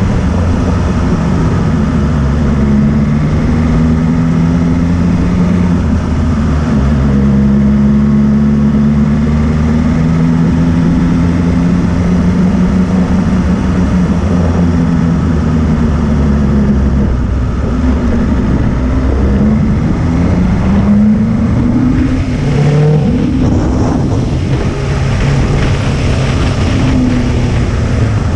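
Motorcycle engine running under way on a climbing road, heard from on board. Its pitch holds fairly steady at first, then rises and falls several times in the second half as the throttle and revs change.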